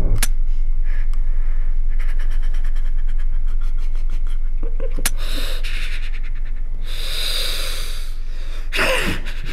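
A pistol clicking without firing: a sharp click, a quick run of faint ticks, then another sharp click about halfway, over a low steady drone. Breathy gasping sounds follow near the end.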